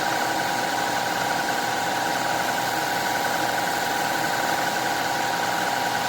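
Shark cordless stick vacuum running steadily, its motor giving a constant high whine over the rush of air.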